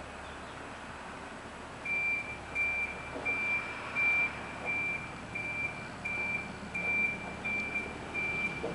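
A single high electronic beep repeating evenly, about one and a half times a second, starting about two seconds in, over steady low background noise.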